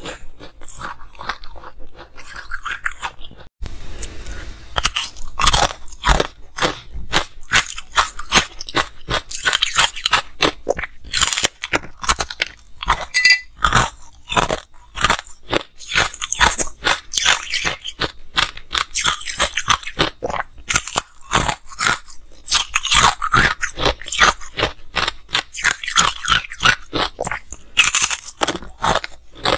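Ice being bitten and chewed: a rapid run of sharp, crackling crunches. A brief break about three and a half seconds in, then the crunching goes on.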